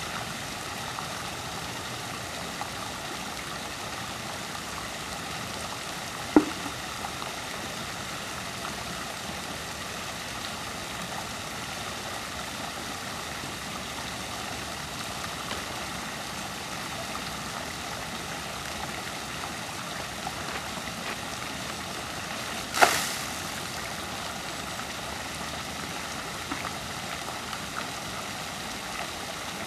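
Water splashing steadily from a tiered stone fountain, its jets and overflow falling into the basin. Two sharp knocks stand out: a short one about six seconds in and a louder one, ringing briefly, a little after twenty-two seconds.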